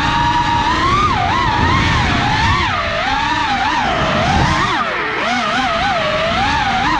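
Racing quadcopter motors whining, their pitch rising and falling quickly and unevenly with the throttle.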